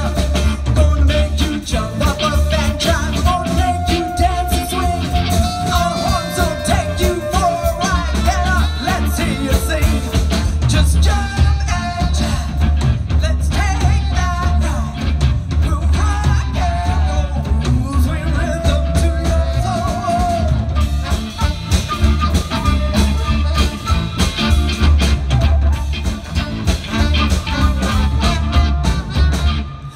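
Live band playing: electric guitar, drum kit and a horn section of saxophone and trombone, with a female lead vocal over a steady beat and heavy bass.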